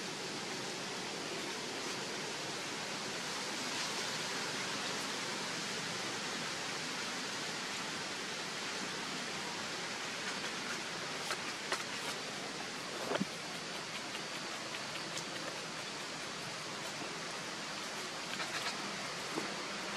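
Steady outdoor background hiss, even and unchanging, with a few faint short clicks and taps from about halfway through.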